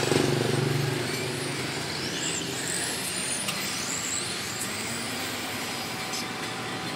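Radio-controlled mini race cars running on an asphalt track, their motors whining high and rising and falling in pitch as they accelerate and slow. The sound is loudest in the first second as a car passes close by.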